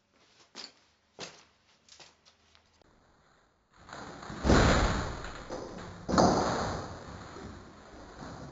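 A person crashing bodily onto a woven suitcase and the floor: two heavy thuds about a second and a half apart, each fading out slowly, after a few faint knocks.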